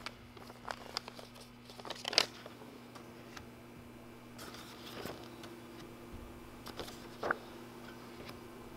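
Printed photographs being laid down and slid across a table: scattered light paper slaps and rustles, the loudest about two seconds in, over a faint steady hum.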